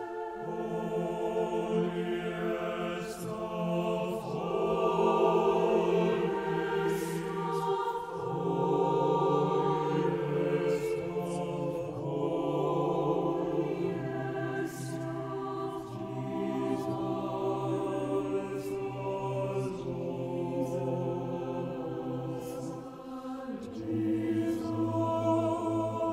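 Mixed choir of men's and women's voices singing slow, sustained chords that change every few seconds.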